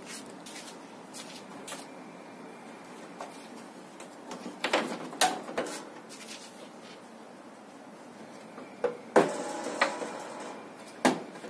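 Plastic clicks and knocks from the front grille of a Midea split AC indoor unit as it is pressed and worked into place, with its locking catches snapping in. The knocks come irregularly, in clusters about halfway through and again near the end.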